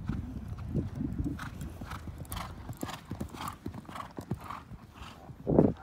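Horse cantering on a sand arena: hoofbeats and rhythmic breathing puffs about twice a second, in time with the stride. A short loud thump near the end.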